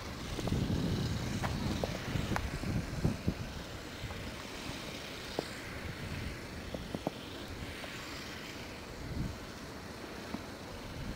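Strong wind in a snowstorm blowing across the microphone, with low rumbling gusts strongest in the first few seconds and again near the end, and scattered faint clicks.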